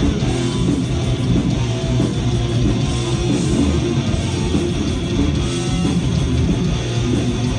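A heavy metal band playing live: loud, distorted electric guitars over bass and drums.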